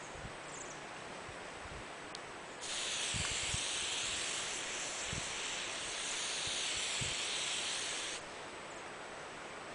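Aerosol hairspray can spraying in one continuous hiss of about five and a half seconds, starting a few seconds in and cutting off sharply.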